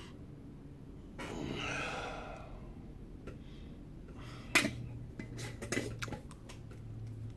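A long breath, then a sharp click about halfway through followed by a quick run of lighter clicks and taps of small hard objects being handled.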